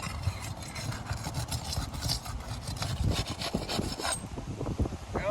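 Scraping and rubbing of a tool being worked under asphalt roof shingles to break their seal strips, in irregular strokes with a few sharper knocks.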